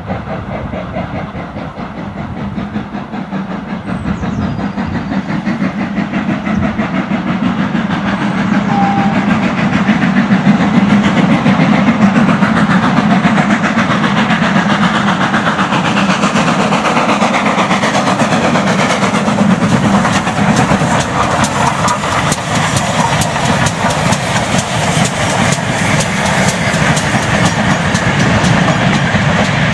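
Two double-heading 2-6-0 mogul steam locomotives, ex-GWR 5322 and ex-SR 31806: the exhaust beats of both engines with hiss of steam, getting louder over the first ten seconds as the train approaches, then staying loud.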